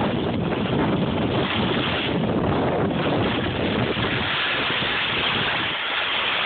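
Wind rushing over the microphone of a camera carried by a downhill skier, with skis hissing over snow. The rush thins out a little over the last couple of seconds as the skier slows.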